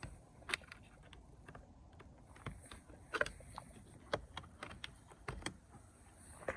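A scattered series of short, sharp clicks and taps, about half a dozen at irregular spacing, over low background noise.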